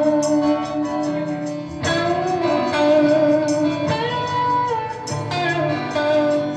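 Southern rock band playing an instrumental break: a lead melody of long held notes with slides and bends over strummed guitar accompaniment.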